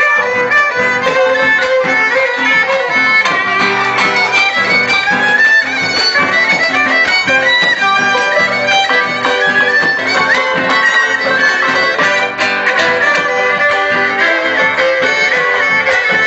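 Live instrumental Argentine folk music in gato rhythm: a violin carries the melody over strummed guitars.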